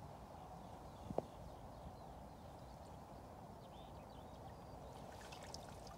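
Quiet riverbank ambience: a faint, steady rush of flowing river water, with a single sharp click about a second in.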